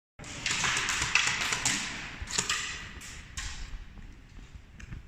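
A brief gap of silence, then irregular sharp taps and clicks over a rustling hiss, fading after about three and a half seconds.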